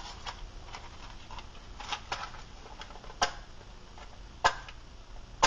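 Matches struck against the side of a matchbox again and again without catching: four sharp scrapes about a second apart, the last the loudest. The matches are failing to light, which is taken as a sign they are old.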